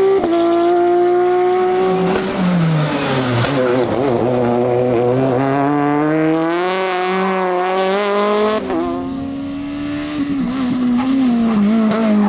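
Rally car engine running hard. Its pitch drops with a gear change about two seconds in, climbs steadily for several seconds, then shifts abruptly again near nine seconds in and eases off towards the end.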